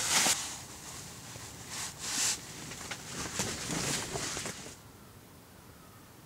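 Clothing and fabric rustling from handling: a short swish right at the start and another about two seconds in, softer shuffling around three to four seconds, then it goes quiet.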